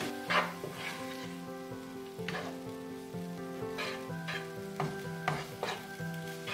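Instant noodles sizzling in a ceramic-coated frying pan as a wooden spatula stirs them, with irregular scrapes of the spatula against the pan, coming more often in the second half.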